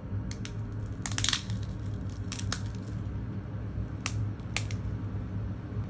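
Thin clear plastic screen-protector film crackling and clicking in the fingers as its backing layer is peeled off: a handful of short crinkles, the loudest about a second in, over a steady low hum.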